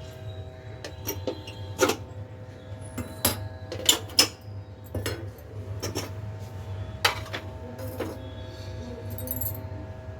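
Sharp clicks and clinks of small hard objects being handled, about eight at irregular intervals, over a steady low hum.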